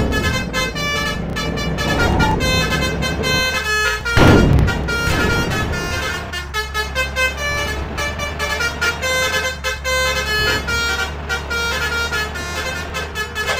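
Basuri multi-tone bus horn playing a rapid 'telolet' melody of short notes that change pitch several times a second, over a steady engine rumble. Two bursts of rushing noise cut in, the louder one about four seconds in.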